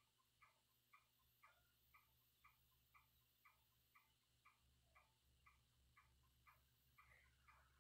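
Near silence with faint, even ticking, about two ticks a second.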